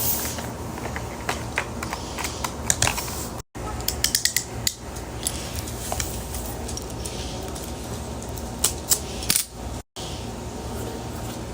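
Small hard objects clinking and clattering as they are handled, in quick clusters of sharp clicks over a low steady hum. The sound cuts out completely for an instant twice.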